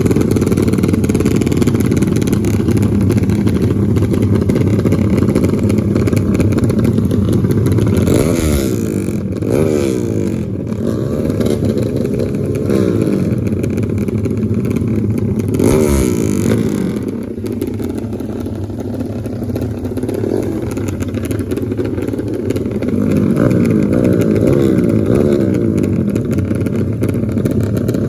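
Racing motorcycle engines running hard, their pitch repeatedly sweeping up and dropping back as the bikes rev and shift. The sound eases a little in the middle, then picks up again.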